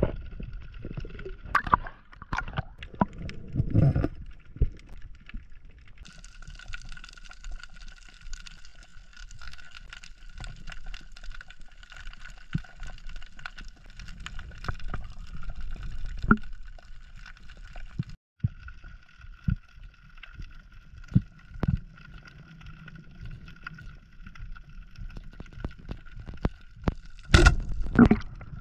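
Underwater sound through a diver's camera: water gurgling and sloshing, with scattered clicks and knocks and loud gurgling bursts a couple of seconds in and again near the end. From about six seconds in, a steady high whine made of several stacked tones runs underneath, with a short break about two-thirds of the way through.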